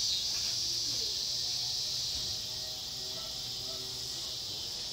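Steady, high-pitched chorus of summer insects droning without a break.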